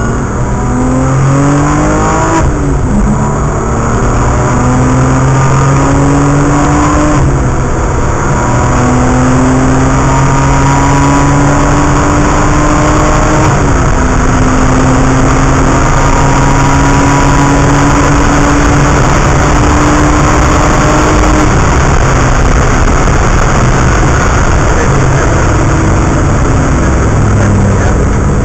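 Car engine heard from inside the cabin, accelerating hard through the gears: the pitch climbs, drops at each of three upshifts about 2, 7 and 14 seconds in, climbs long again and then levels off. Heavy road and wind noise runs under it.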